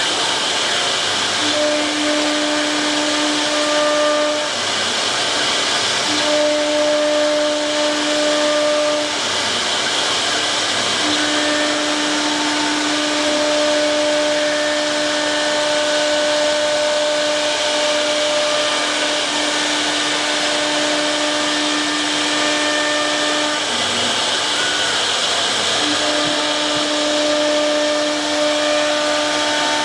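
A 1325 CNC wood router with a 4.5 kW spindle running and cutting wood: a steady whining machine noise with a pitched tone that drops out and comes back every few seconds as the cut goes on.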